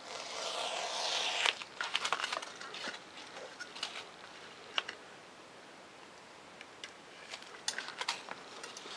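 A razor knife drawn through 3 mm Depron foam along a plastic ruler: one scraping slice lasting about a second and a half, followed by light clicks and taps as the ruler and cut foam pieces are handled.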